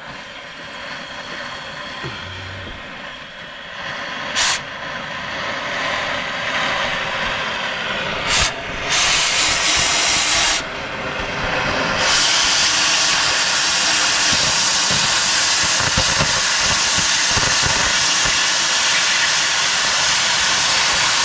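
Metal being cut through to remove a wheel's lug nut whose stud spins freely and won't let the nut come off. A loud hiss in short bursts at first, then continuous from about halfway through.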